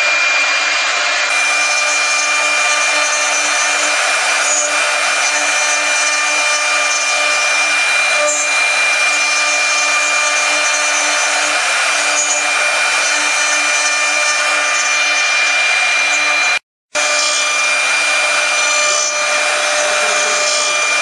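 CNC wood-carving router spindles running at a steady high whine while the bits cut into a wooden furniture leg on the rotary axis, with a constant hiss of cutting. The sound drops out for an instant late on.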